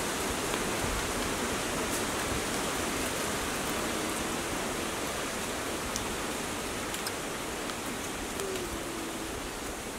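A steady, even hiss with a few faint ticks.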